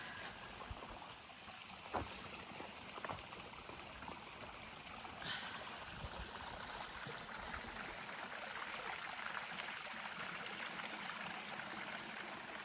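Small creek running steadily, with a few soft knocks about two, three and six seconds in.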